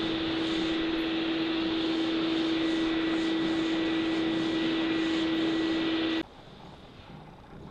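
Steady mechanical drone with a constant low hum, like a running blower or fan, that cuts off suddenly about six seconds in, leaving quiet room tone.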